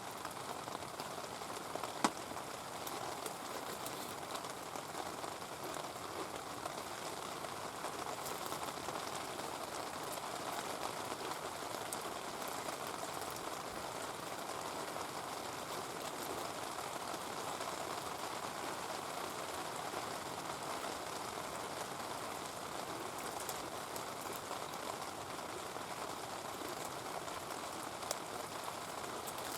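Heavy rain falling steadily, with a single sharp click about two seconds in.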